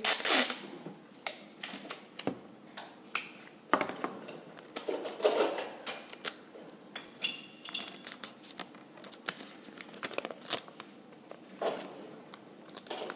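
Sticky tape being pulled off the roll, torn and pressed around a folded paper wallet: an irregular run of sharp clicks and crinkles, with a brief high squeal about six seconds in.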